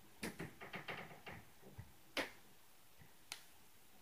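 Irregular sharp knocks and clicks: a quick run of about eight in the first second and a half, a louder single knock about two seconds in, and one more near the end.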